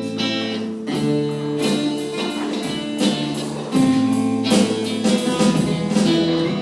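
A live band playing a song, with guitar chords strummed in changing patterns and no singing.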